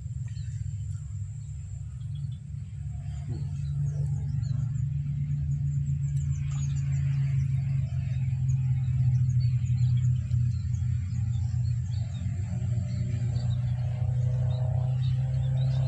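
Wind buffeting the microphone, a steady low rumble that grows a little stronger after about two seconds. Faint bird chirps and a thin, steady insect tone run over it, and the insect tone stops near the end.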